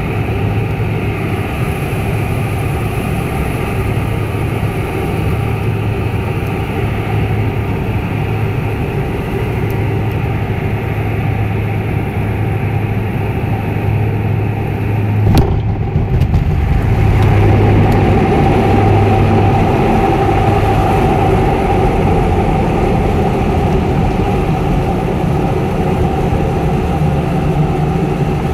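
Twin-turboprop engines of a small high-wing airliner droning through the cabin, with a steady low propeller hum. About fifteen seconds in a sharp thud marks the wheels touching down, and the engine noise then swells and stays louder as the plane brakes on the runway.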